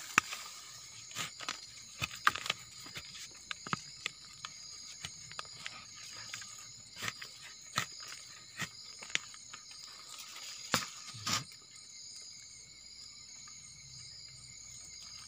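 Irregular scrapes, rustles and small knocks of hands digging in loose soil and leaf litter to unearth a termite mushroom, busiest in the first dozen seconds. A steady high chirring of night insects runs underneath.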